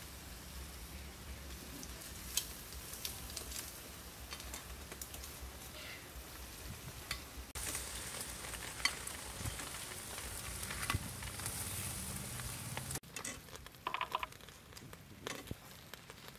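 Prawns sizzling on a grill, a steady hiss with scattered pops and crackles. Near the end the sizzle stops suddenly, leaving a few light knocks.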